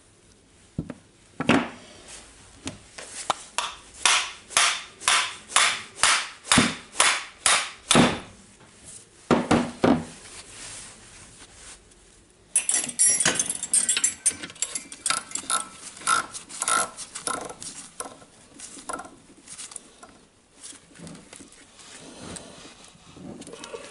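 Sharp metal knocks, about two a second for several seconds, on cordless-drill gear and motor parts being taken apart. Then a busy stretch of metal parts scraping and clinking as they are handled.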